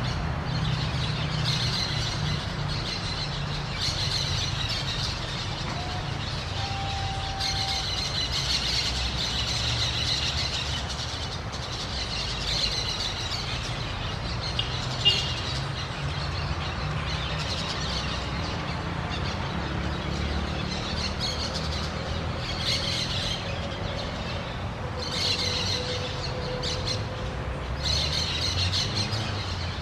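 A flock of orange-chinned parakeets calling in repeated bursts of shrill, squealing chatter over a steady low rumble, with one sharp click about halfway through.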